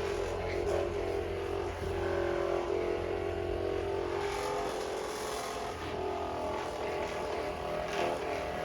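Handheld percussion massage gun running against the muscles, a steady motor hum that shifts a little in pitch as it is pressed in.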